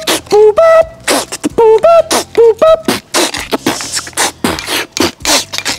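A man's voice chanting short rhythmic "puba, puba" syllables in a sing-song beat. About three seconds in it turns into fast beatbox-style clicks and hissing mouth percussion.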